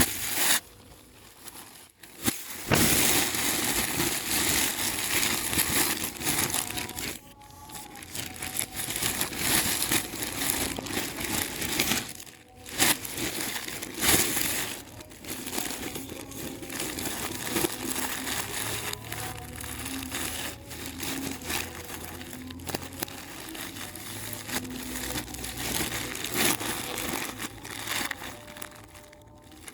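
Packaging crinkling and crackling as it is handled and opened, with irregular rustles and small clicks.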